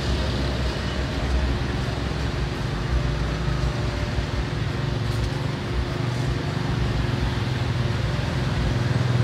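Steady street traffic noise, a continuous low rumble of passing and idling motor vehicles with a faint engine hum under it.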